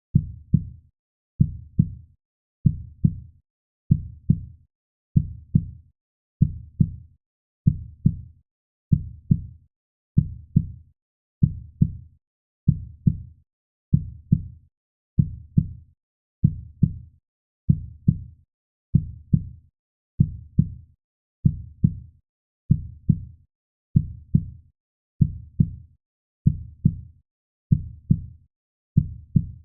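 Slow, steady heartbeat: a double low thump (lub-dub) repeating evenly, a little under once a second.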